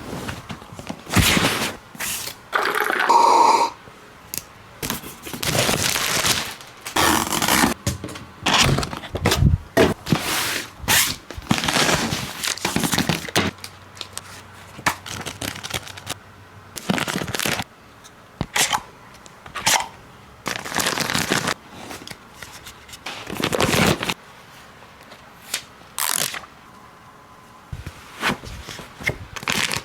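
Packaging being handled and opened: cardboard and plastic scraping, crinkling and crackling in irregular bursts, with a brief squeak about three seconds in.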